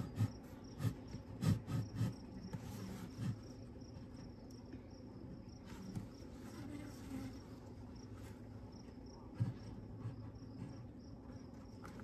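Honeybees humming steadily around an open Layens horizontal hive, with a few light knocks of the wooden frames being shifted in the first three seconds and one more about nine seconds in.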